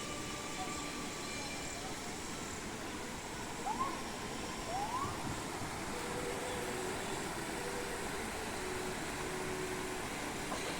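Steady outdoor background noise, with two short rising chirps about four and five seconds in.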